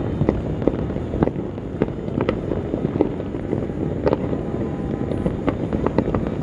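Fireworks going off at a distance: many separate sharp bangs and pops at an irregular pace, roughly one or two a second, over a continuous low rumble.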